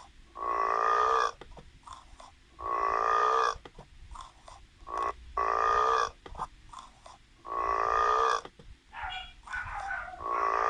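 Burp-like animal calls, each just under a second long, repeated about every two and a half seconds, with a fifth starting near the end.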